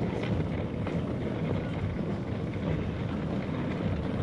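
Outdoor street ambience: a steady low rumble of wind on the microphone of a handheld camera being walked along a pavement, with faint street noise.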